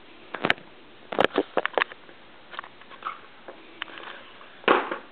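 Baby drinking from a plastic sippy cup: a run of short sucking clicks and gulps at the spout, then a louder breathy burst near the end.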